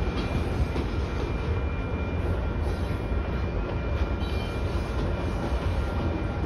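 Freight train of grain covered hopper cars rolling past at a grade crossing: a steady rumble and clatter of steel wheels on rail, with a faint steady high tone running through it.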